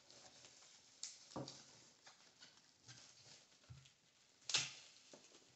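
Faint rustling and crinkling of a thin plastic bag wrapped around a headset as it is handled and pulled open, with a few sharper crinkles, the loudest a little past four seconds in.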